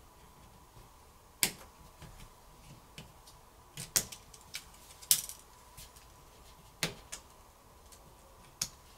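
Scattered sharp clicks, about one to two seconds apart, of a plastic pry tool working the flex-cable connectors and tapping on a smartphone's board and frame as the connectors are popped off.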